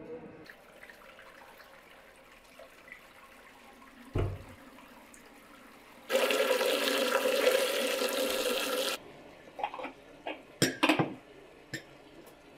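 Water from a garden hose pouring into a large aluminium pot, a steady splashing that starts and stops abruptly and lasts about three seconds. A few sharp knocks follow near the end.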